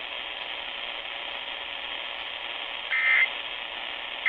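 AM radio reception hiss, then about three seconds in a short, buzzy electronic data burst: the Emergency Alert System's end-of-message code that closes the test, with the next repeat of the burst starting just at the end.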